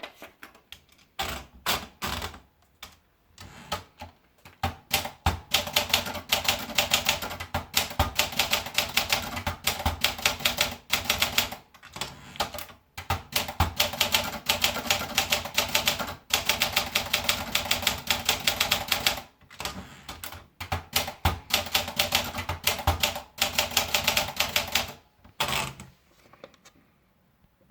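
Olympia Traveller portable manual typewriter being typed on: rapid runs of key strikes, many to a second, broken by short pauses, after a few slower strokes at first. The typing stops shortly before the end.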